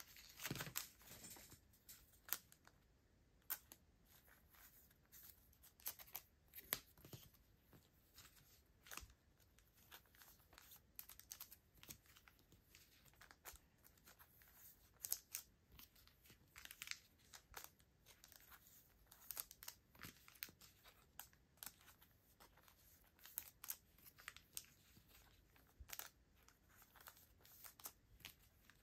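Thin clear plastic photocard sleeves crinkling and rustling as trading cards are slid in and out of them and handled, with small irregular clicks and crackles; faint.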